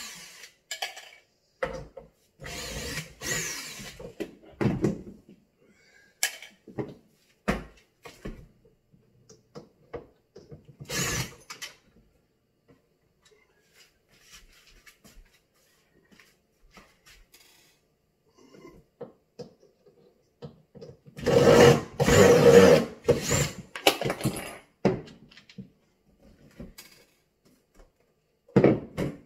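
Cordless drill running in short bursts while backing out cabinet door hinge screws. The longest and loudest run comes about three-quarters of the way through, with scattered clicks and knocks of the hinges and door being handled between runs.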